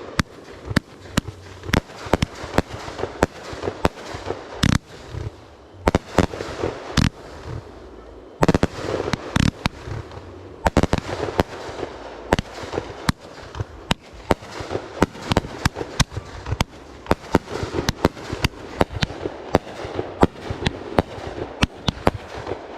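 Fireworks going off one after another: a dense run of sharp bangs and pops, often several a second.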